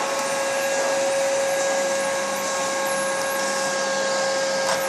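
Vacuum cleaner running steadily with a constant whine, used to vacuum a cat's fur; a brief click near the end.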